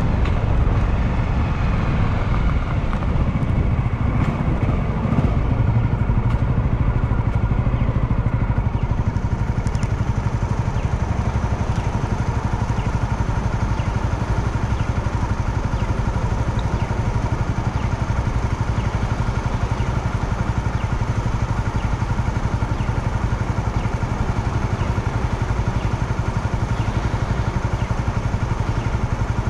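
Honda Clubman motorcycle engine running, with a few changes in its note in the first several seconds before it settles into a steady, even note.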